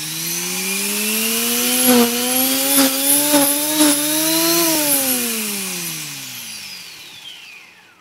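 Walkera V450D03 RC helicopter's electric drivetrain and tail rotor spinning: a mechanical whine that slowly rises in pitch, then falls and fades as the rotor winds down from about five seconds in. A few sharp ticks between two and four seconds in.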